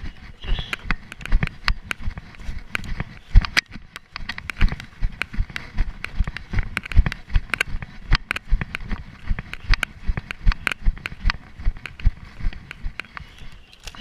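Running footsteps on rough forest ground, heard close up through a chest-mounted camera: a quick, even run of thuds, with sharp crackles of twigs and dry grass underfoot.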